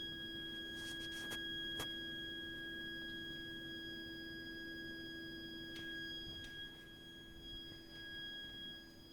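Shrill, continuous high-pitched tone from a heating system's heat interface unit (HIU) and its pipework, with a steady lower tone beneath it, and a few faint clicks about a second in and again past the middle. This is an abnormal plumbing noise that goes on even when heating and hot water are not in use.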